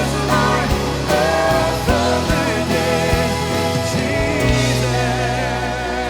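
Live worship band music: drums keeping a steady beat under bass and a wavering melody line, likely a voice. About four and a half seconds in, the drum hits stop and a sustained chord holds.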